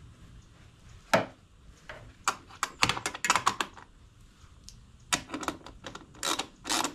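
Socket ratchet clicking in several short runs as nuts and bolts are tightened down, with one sharp knock about a second in.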